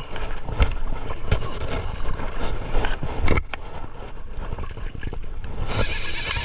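Wind buffeting the microphone aboard a small fishing boat at sea, a steady rumbling hiss with a few sharp knocks. The hiss turns suddenly brighter and louder near the end.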